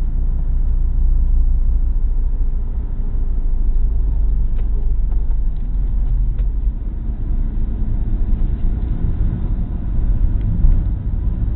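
Opel Corsa's engine and road noise heard from inside the cabin while driving at speed: a steady low rumble.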